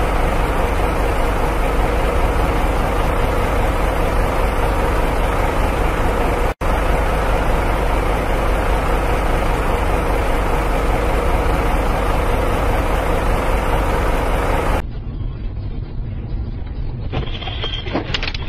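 Loud, steady noise of a small hatchback driving on a collapsed rear wheel, broken off for an instant about six and a half seconds in. Near the end it cuts to a quieter, duller dashcam recording with a few sharp knocks as a truck crashes through the roadside ahead.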